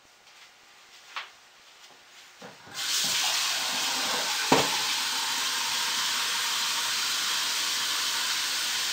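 A steady rushing noise like water running from a tap starts about three seconds in and holds evenly, with one sharp click partway through.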